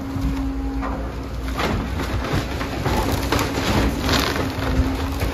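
A hydraulic excavator tearing apart a wood-framed house: timber and roofing crunch and splinter in several irregular cracks over the steady drone of the excavator's engine.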